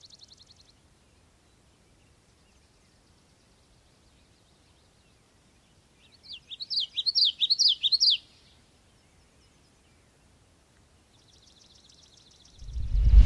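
Birds calling: a high buzzing trill fading out at the start, a loud run of about six quick rising-and-falling chirps about six seconds in, and another high trill near the end, with near silence between. A loud deep rumble starts just before the end.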